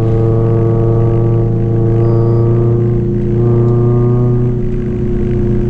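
Honda Civic Nouva's four-cylinder engine heard from inside the cabin, pulling at steady revs in second gear up a steep climb.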